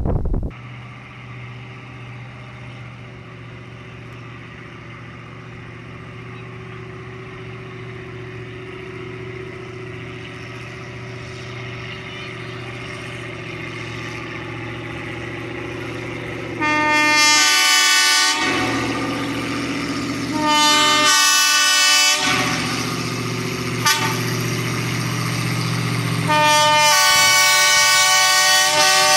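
1928 Plymouth gas locomotive No. 26 approaching with its engine running at a low steady hum that grows louder. Its horn sounds for the grade crossing: two long blasts a few seconds apart, then a third long blast near the end.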